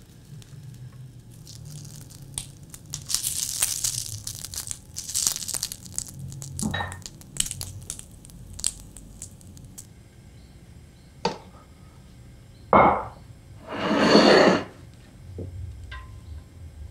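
Meatball skewers sizzling and crackling on a hot ridged grill pan as they are basted. In the second half come a few sharp knocks, like skewers or tongs against the pan, and one loud burst of sizzling.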